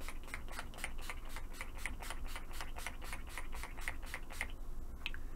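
A rose-water setting-spray bottle pumped rapidly in a fast, even series of short spritzes, about five a second, stopping about four and a half seconds in.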